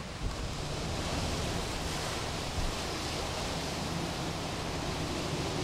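Tropical-storm wind and heavy rain: a steady hiss of driving rain and gusting wind, with a low rumble of wind buffeting the microphone.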